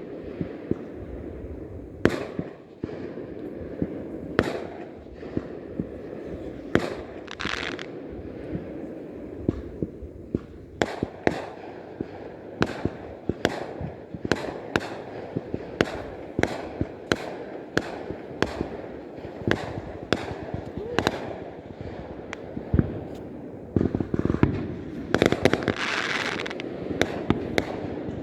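Fireworks going off in a steady run of sharp bangs, about one or two a second, with longer crackling, hissing bursts about a quarter of the way in and again near the end.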